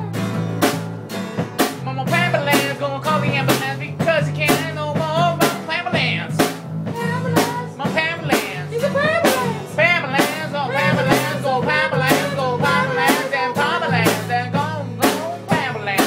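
Small band playing a blues-style song: a drum kit keeping a steady beat under bass and guitar, with a melody line that bends and wavers over the top.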